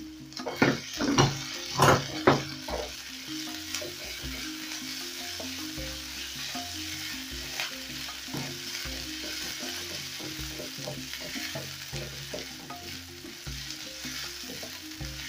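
Chopped onions and ginger sizzling in hot oil in a frying pan while being stirred with a spatula. A few sharp taps of the spatula come in the first couple of seconds, then a steady sizzle.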